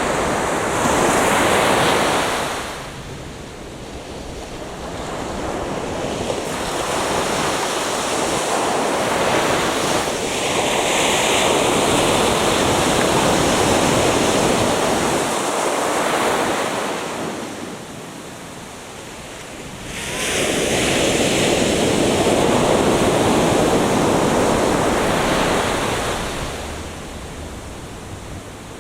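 Atlantic Ocean surf breaking and washing up a beach, swelling in three long surges of several seconds each with quieter lulls between.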